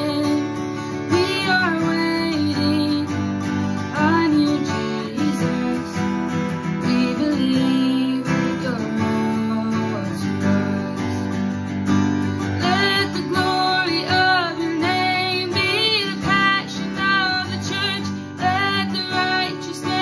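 A young woman singing solo with her own strummed acoustic guitar. In the second half her held notes waver with vibrato.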